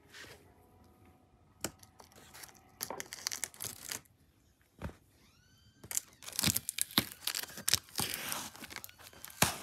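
Clear plastic wrap and tape being torn and crinkled off a cardboard box: a short burst of tearing about three seconds in, then a longer, louder stretch of tearing and crackling in the second half, ending in a sharp snap.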